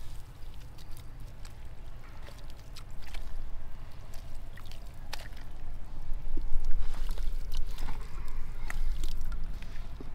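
Wet mud and water being worked by hand: scattered squelches, drips and small clicks over a steady low rumble, busiest in the second half.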